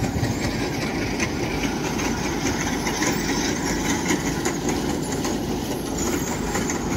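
Diesel engine of a Kubota DC-105X rice combine harvester running steadily, close by.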